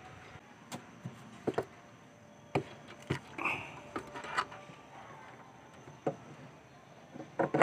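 Scattered light knocks, clicks and scraping from a new aluminium brake master cylinder being worked by hand onto the brake booster's mounting studs, with the metal brake lines being handled around it.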